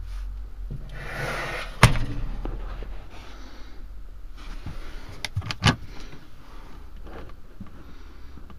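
Motorhome kitchen doors being handled: one sharp slam about two seconds in, then a quick run of three or four knocks and clicks a little past halfway.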